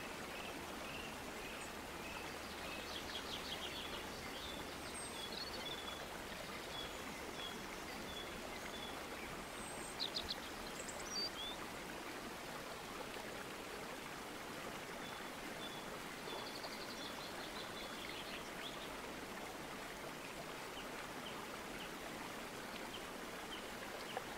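Nature ambience: a steady rush of running water with birds calling over it, in short chirps, trills and runs of repeated high notes, including a few sharp clicky notes about ten seconds in.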